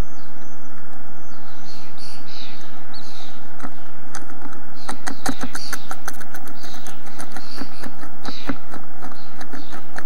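Steady hiss from a nest-box microphone with bird chirps through it. From about four seconds in comes a run of sharp clicks and scratches as the eastern bluebird shifts in the pine-straw nest.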